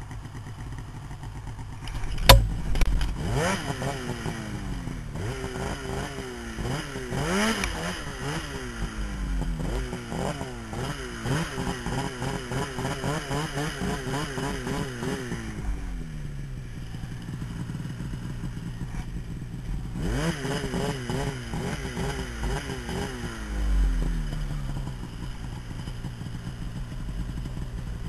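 2011 Polaris 800 RMK Assault snowmobile's two-stroke twin engine revving up and easing off repeatedly under a rider in deep snow, with a sharp knock about two seconds in. The revs climb and waver high for about ten seconds, drop back, then climb again about twenty seconds in before falling off near the end.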